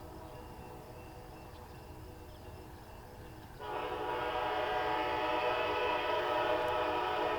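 Amtrak Pere Marquette train's Siemens locomotive horn, heard at a distance and echoing: a faint fading chord, then a long, steady blast starting about halfway through.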